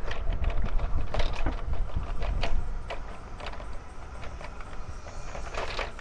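Wind rumbling on the microphone of a moving bicycle, heaviest in the first half, with irregular clicks and rattles from the bike as it rolls.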